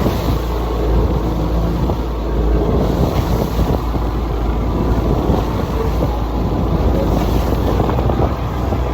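Motorboat running steadily under way, with wind buffeting the microphone in a constant low rumble.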